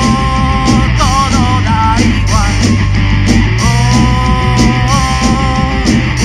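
Punk rock song playing, with electric guitar, bass and a steady drum beat. A held melody line sustains notes and bends in pitch about a second in.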